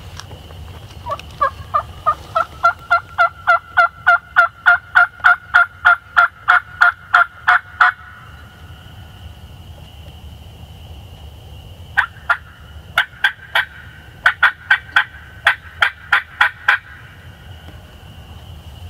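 Diaphragm mouth call blown by a turkey hunter, imitating a hen turkey's yelps to draw a gobble from roosted toms. A long string of yelps at about four notes a second grows louder over about seven seconds. After a pause of about four seconds, a shorter string follows.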